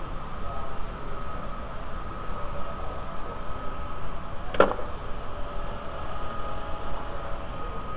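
Steady background hum of workshop machinery with a faint, constant high whine, broken once about halfway through by a single sharp clink.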